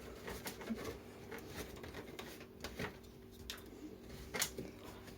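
Quiet room tone with a steady low hum and a few faint, short clicks or taps.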